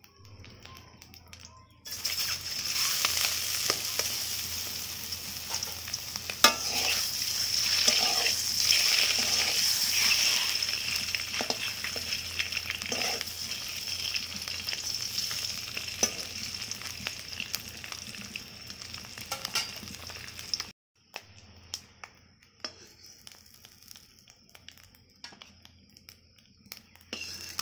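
Whole boiled, peeled eggs frying in hot oil in a wok: a loud, steady sizzle with sharp pops of spitting oil. It cuts out abruptly about three-quarters of the way through and comes back fainter.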